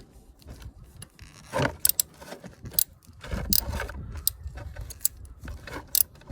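17 mm ratchet wrench clicking in short, uneven spells of metallic clicks as it works the stuck oil drain bolt loose.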